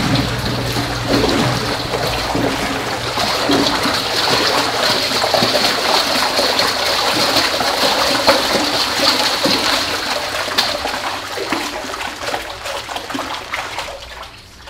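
Water being stirred vigorously by hand with a wooden stick in a vessel, swishing and splashing as a vortex is formed to mix in a biodynamic preparation; the sound fades out near the end.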